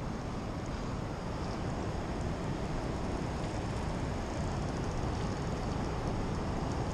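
Steady, even rush of a fast-flowing river running high.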